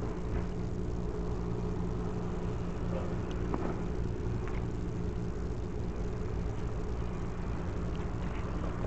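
Steady low hum of an idling engine, with a few faint clicks.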